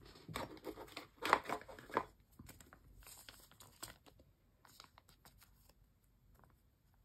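A clear plastic photocard sleeve crinkling and rustling as a photocard is handled and slid into it. The rustling is loudest in the first two seconds, then thins to faint scattered rustles and small clicks.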